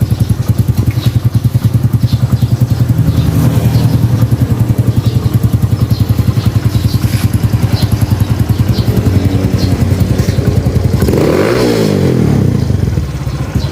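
Kawasaki Fury 125's single-cylinder engine idling through an aftermarket Exos X6 exhaust pipe with an even, pulsing beat. About eleven seconds in the throttle is blipped: it revs up and drops back.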